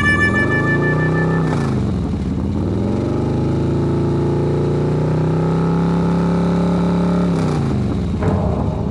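A person's voice imitating a motor, a drawn-out hum that dips in pitch, rises again, holds steady for a few seconds and drops near the end, like a vehicle slowing, pulling away and cruising.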